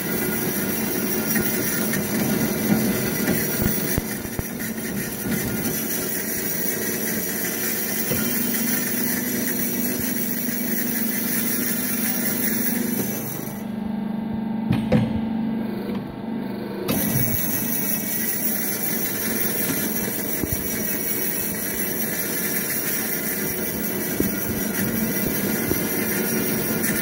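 Behringer HBP 340 A automatic metal-cutting band saw running: a steady mechanical hum with a hiss over it. The hiss drops away for about three seconds near the middle, then returns.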